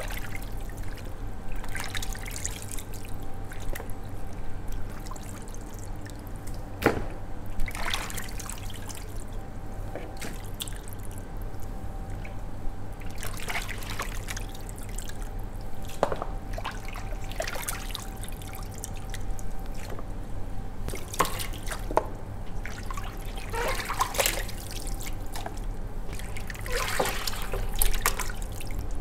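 Gloved hands squishing raw chicken wings in a watery soy marinade in a large steel bowl: irregular wet squelches, with marinade dripping and trickling back into the bowl. A faint steady hum runs underneath.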